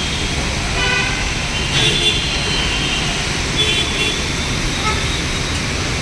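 Steady hiss of heavy rain and traffic on a wet city road, with vehicle horns honking: a short blast about a second in, then higher honks around two and four seconds in.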